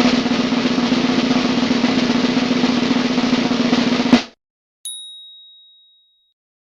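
Snare drum roll of about four seconds, ending on a sharp final hit. A single high bell ding follows a moment later and rings out.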